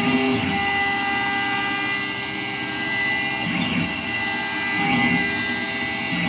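Langmuir MR-1 gantry CNC mill full-width slotting aluminum with an end mill, spindle at 8,000 RPM and feeding at 235 inches a minute: a steady high machine whine with a few brief low sweeps that rise and fall.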